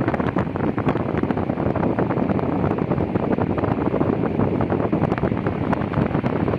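Arge Stylo Mais 50 cm, 140 W table fan running, its airflow rushing and buffeting against the microphone with a fast, uneven flutter.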